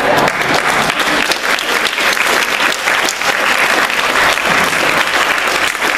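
Audience applauding with dense, steady clapping at the end of a theatre scene, starting as the dialogue ends.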